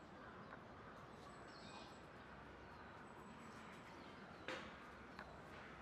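Near silence: faint outdoor ambience, with a brief faint chirp about two seconds in and a single sharp click about four and a half seconds in.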